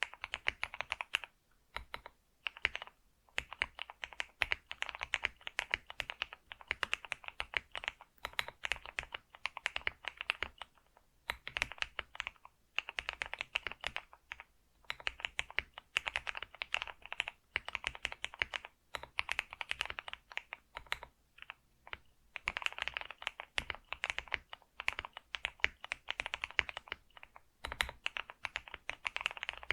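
Computer keyboard being typed on continuously, in fast runs of key clicks broken by short pauses.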